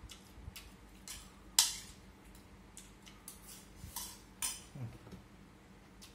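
Chopsticks clinking and scraping against a ceramic rice bowl as rice is eaten, in scattered light clicks; the sharpest clink comes about a second and a half in.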